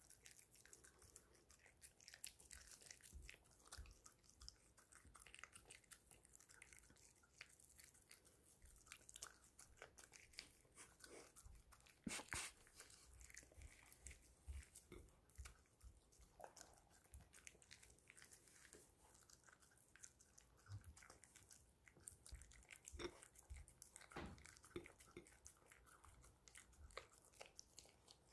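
Poodle eating soft dog cake off a ceramic plate: faint chewing, biting and licking with scattered small clicks, the sharpest about twelve seconds in.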